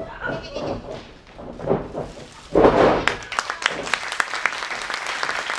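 A wrestler's body slamming onto the wrestling ring with a loud thud about two and a half seconds in, followed by the audience clapping.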